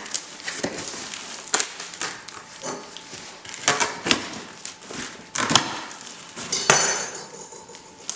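A cardboard shipping box being opened and unpacked by hand: irregular sharp knocks and clicks, with scraping and rustling of cardboard and packing.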